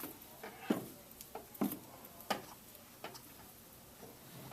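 A few light, sharp clicks and taps from hands handling baler twine, spaced irregularly about every half second to a second.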